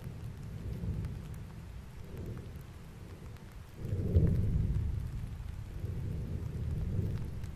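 Deep rumbling of Mount Etna erupting, its crater throwing out lava in repeated explosive bursts; the rumble swells and fades, with the loudest surge about four seconds in.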